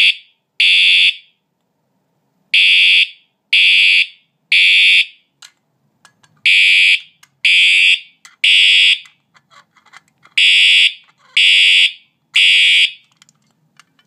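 Fire alarm horn sounding in the code 3 (temporal-3) evacuation pattern: three harsh half-second blasts about a second apart, then a pause of about a second and a half, repeating. Faint handling clicks fall in the gaps.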